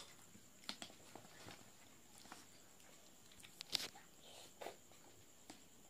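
Near silence broken by a handful of faint, scattered clicks and taps of a plastic spoon and paper food boxes as children eat, the sharpest a little past the middle.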